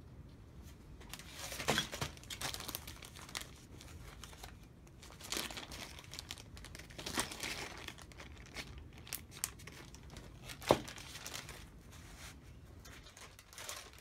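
Clear plastic zip-top parts bag crinkling and rustling as it is handled, in irregular short bursts. One sharp click about ten and a half seconds in.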